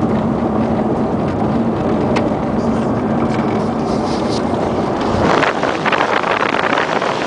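Car driving: steady engine and road noise heard inside the cabin, with a low hum. About five seconds in, the microphone goes outside the moving car and a loud wind rush buffets it.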